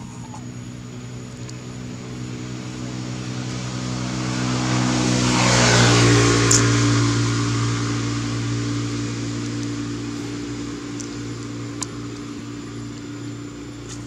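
A motor vehicle's engine passing by, growing louder to a peak about six seconds in and then fading away.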